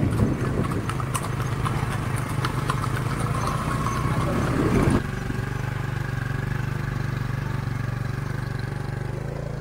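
Motorcycle engine running steadily at low speed, slightly quieter from about halfway through.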